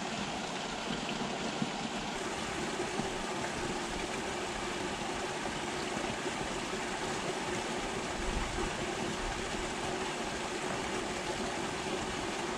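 Steady rush of water from a small outfall spilling into a ditch.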